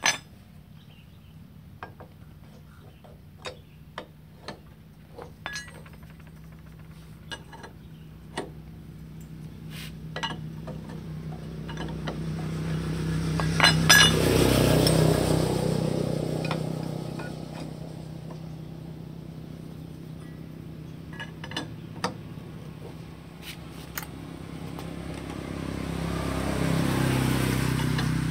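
Metal parts and tools clinking now and then as they are handled. A passing vehicle's engine swells up and fades about halfway through, and another swells up near the end.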